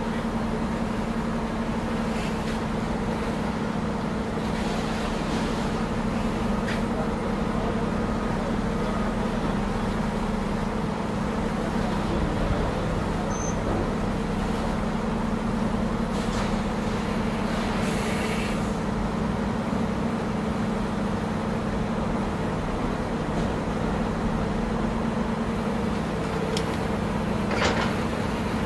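Caterpillar 330C excavator's diesel engine running steadily as its grapple works over a car, a constant low drone. A few short metal crunches and knocks come through it, about a third of the way in, two more past the middle, and one near the end.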